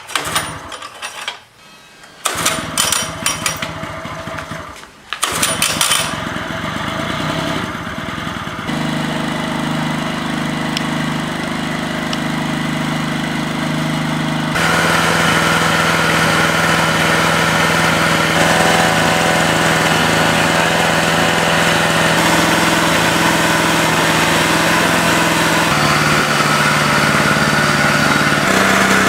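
A restored 1994 Yamaha ET900 portable generator's engine starting and running. It clatters irregularly for the first few seconds, then catches and runs steadily. Its speed steps up about halfway through and shifts slightly again near the end.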